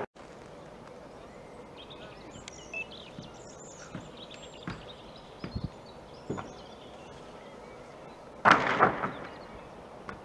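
Quiet woodland trackside ambience with small birds chirping, a few soft knocks, and one short louder burst of noise about eight and a half seconds in.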